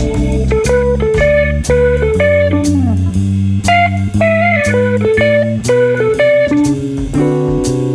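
Background music: guitar playing single notes, some of them bent, over bass and a steady drum beat.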